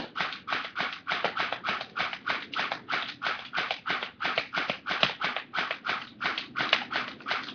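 Airsoft rifle firing on semi-automatic: a rapid, even string of sharp shots at about three a second.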